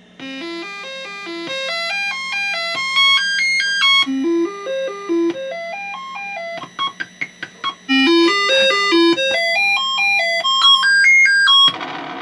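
Commodore 64 SID sound chip playing the diagnostic cartridge's sound test: runs of stepped electronic notes climbing and falling in short repeating patterns. The notes break off for about a second past the middle, then start again, over a steady low hum. This SID does not sound healthy.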